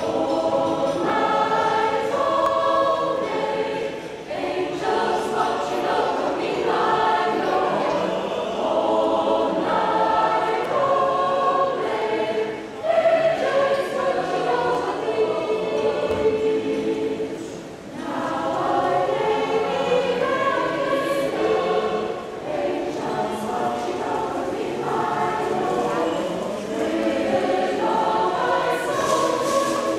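Mixed adult choir of women's and men's voices singing, with short breaks between phrases.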